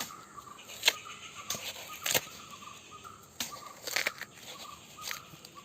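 Irregular sharp knocks and snaps, about six in a few seconds, as the soft central core of a banana stem is cut and pulled out.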